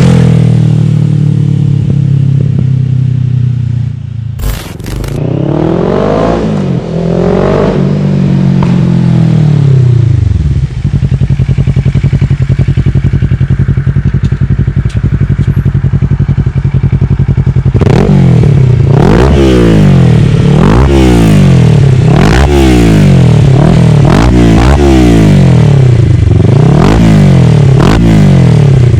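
Kawasaki ER-6n's 649 cc parallel-twin engine through an Akrapovic exhaust with the dB-killer removed, running steadily, then revved up and down a few times. Over the last ten seconds it is blipped again and again, about one rev every second and a half. A sharp click is heard once about four and a half seconds in.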